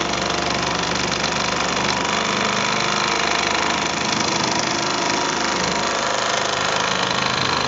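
Handheld high-speed rotary tool running steadily, its tip held against a Mamod toy steam engine, with the engine's flywheel spinning along.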